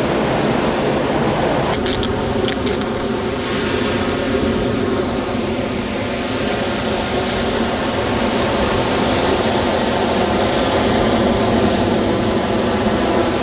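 Steady rushing noise of surf at the water's edge, with a few sharp handling clicks about two seconds in.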